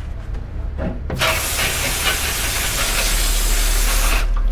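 Compressed-air blow gun hissing in one strong jet, starting abruptly about a second in and cutting off near the end, as shock absorber parts are cleaned after washing.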